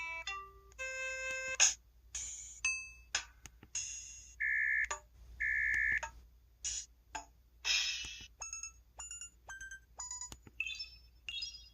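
EV-W350 mobile phone's keypad button sounds played one after another: a rapid run of short synthetic beeps and chimes at changing pitches, with two longer held tones about halfway through.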